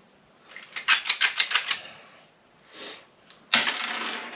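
Hand pop-rivet gun being squeezed to set an aluminum rivet: a quick run of about eight sharp metal clicks about a second in, followed near the end by a louder, rushing noise.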